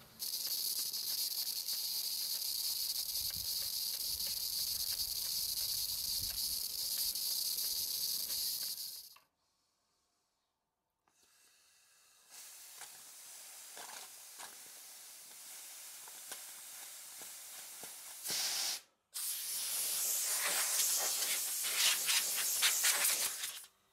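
Steam hissing loudly and steadily from a Stuart Models beam engine running on steam from its small boiler, cutting off suddenly about nine seconds in. After a short silence, a cloth rubbing over the engine's metal, a scratchy noise that turns loud over the last few seconds.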